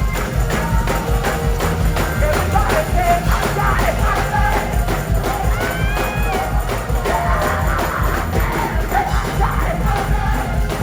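Gospel choir singing live with a full band, drums keeping a steady beat under a strong bass line.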